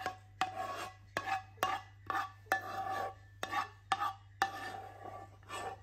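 A spoon scraping béchamel sauce out of a frying pan: about ten quick scrapes, roughly two a second, each with a short metallic ring.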